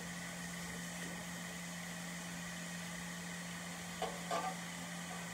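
Vegetables (squash, zucchini and onion) cooking in butter in a stainless steel skillet on high heat, giving a faint sizzle over a steady low appliance hum. About four seconds in there are two or three short metal clinks as a spoon is laid down against the pan.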